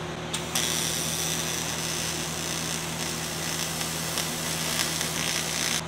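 TIG welding arc on aluminum diamond plate: a short click as the arc strikes about half a second in, then a steady hissing arc for about five seconds that cuts off sharply near the end.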